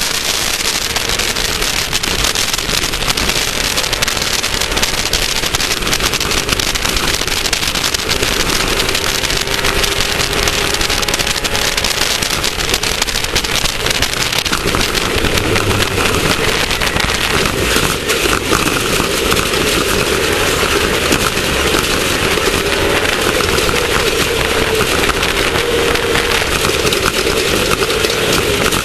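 Class 1600 off-road race car's air-cooled VW flat-four engine running hard, its pitch shifting a little, over a constant clatter of knocks and rattles.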